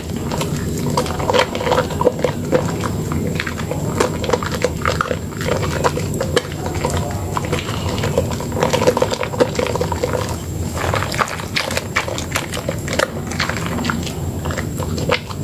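A soaked, softened bar of soap squeezed and kneaded by hand in a basin of thick lather: continuous wet squishing and squelching, full of small irregular pops and clicks.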